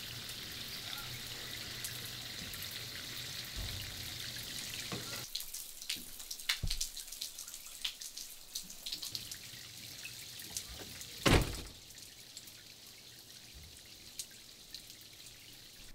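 Steady rain hissing with drips, which falls away about a third of the way in, leaving scattered drips and ticks and one louder thump about two-thirds through.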